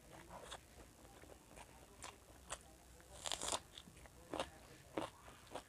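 Close mouth sounds of a person chewing food, with irregular short crisp crunches; the loudest cluster of crunches comes about three seconds in.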